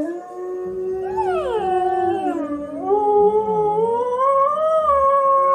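A dog howling in one long, drawn-out howl that slides down in pitch about a second in, then rises slowly toward the end.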